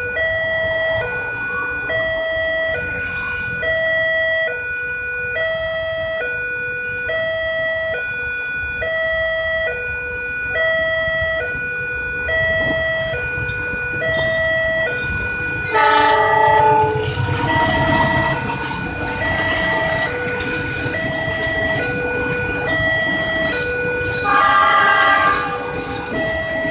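Indonesian railway level-crossing warning siren sounding from its loudspeaker: a two-tone hi-lo wail, each tone about half a second, repeating steadily. About sixteen seconds in a train arrives and passes with a loud rumble over the siren, and a horn-like blast sounds as it comes and again near the end.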